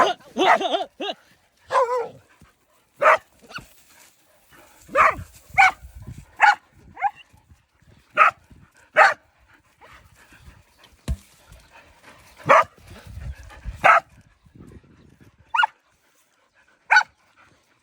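Dogs barking in short single barks, about fifteen spread irregularly and thinning out towards the end: hunting dogs barking at a snake they have cornered.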